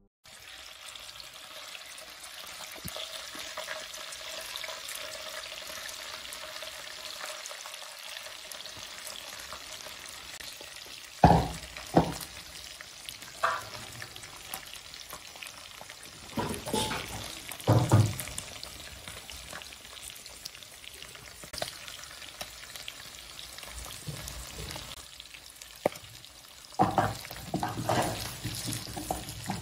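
Boiled beef pieces sizzling in oil on a tawa griddle, a steady frying hiss. From about a third of the way in it is broken by several sharp knocks and scrapes, in clusters, as the meat is stirred on the griddle.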